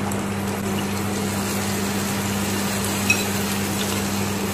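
Rice-and-jaggery appam batter deep-frying in hot oil, a steady sizzling and bubbling, with a low steady hum underneath and a single light tick about three seconds in.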